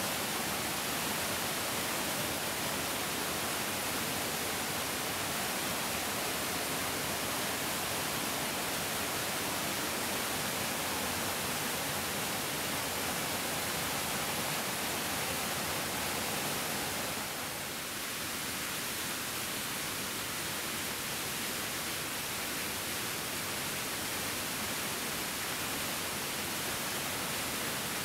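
Mountain stream rushing over rocks: a steady, even hiss of flowing water, dipping slightly for a moment about two-thirds of the way through.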